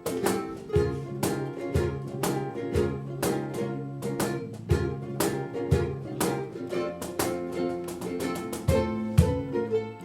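Ukulele ensemble playing: rhythmic strummed chords, about two to three strokes a second, with low bass notes sounding under them.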